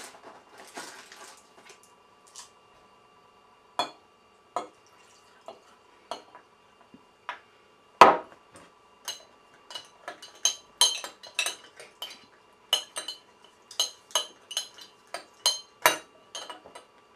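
Spoon clinking against a drinking glass as a drink is stirred, about two to three clinks a second through the second half. A single louder knock comes about halfway through, with a few scattered clicks before it.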